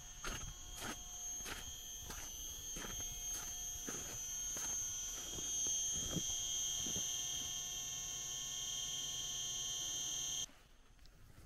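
Steady high-pitched electrical whine from a solar plant's inverter and transformer cabinets, with footsteps on snow at about one and a half steps a second that stop about halfway through. The whine cuts off suddenly near the end.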